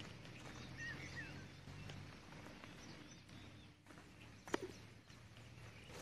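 Quiet outdoor ambience with a faint steady low hum, a few faint bird chirps about a second in, and a single sharp click about four and a half seconds in.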